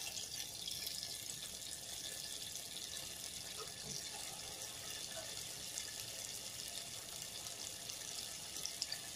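Urad dal vada batter deep-frying in hot oil: a steady, faint sizzle with fine crackling.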